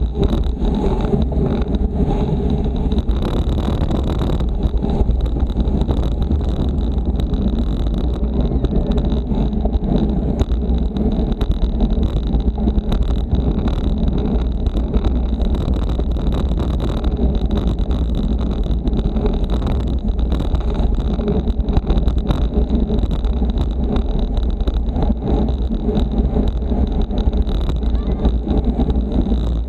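Steady wind rush buffeting a bicycle-mounted camera's microphone while riding at race speed in a pack, with a thin steady high whine over it.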